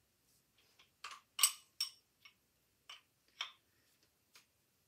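A small steel wrench clicking and tapping against the air fitting of a Husky 3-inch pneumatic cutoff tool as the fitting is loosened. There are about eight light, irregular metal clicks, the loudest about one and a half seconds in.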